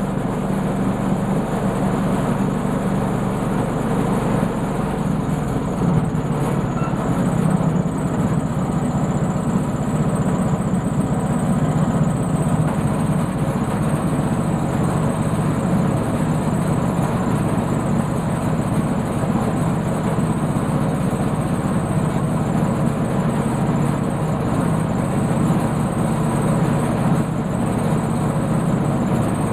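Sawmill engine running steadily.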